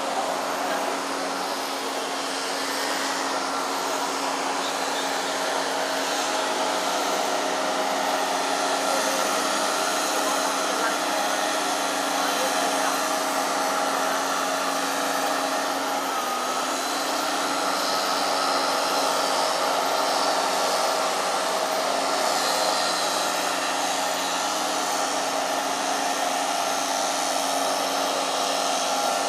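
A motor-driven machine running steadily: a continuous whine with a few held tones over a loud hiss, without a break.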